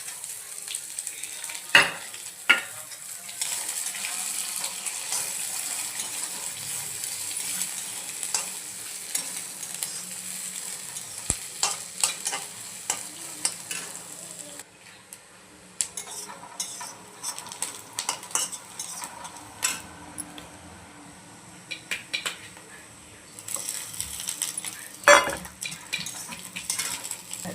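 Fried rice sizzling in a hot pan while being stirred with a metal spatula, which scrapes and clicks against the pan, with a couple of loud knocks. The sizzle fades about halfway through, while the scraping goes on.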